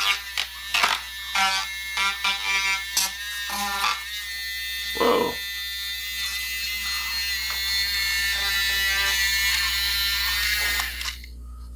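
Small electric motor of a Badger 121 battery-powered paint mixer whirring steadily while its whisk spins in a tub of soapy water. There are a few knocks in the first few seconds, and the motor cuts off just before the end.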